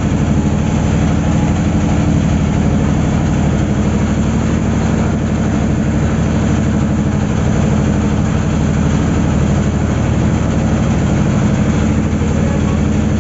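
A motorboat's engine running steadily as the boat cruises along, a loud, even low drone.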